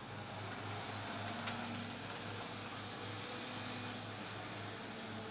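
Faint steady whir of a Kato N-scale GE AC4400CW model locomotive's small electric motor and its wheels rolling on the track, under a steady hiss and low hum, with one light click about a second and a half in.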